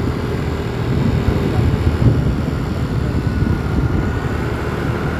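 Steady low rumble of a moving vehicle's engine and road noise.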